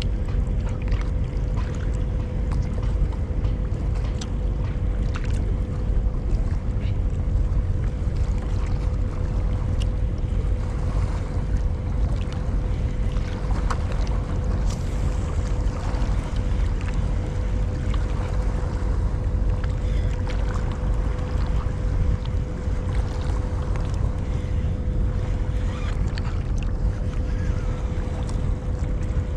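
Steady low rumble with a constant hum, typical of a boat engine running out on the harbour, with scattered faint ticks over it.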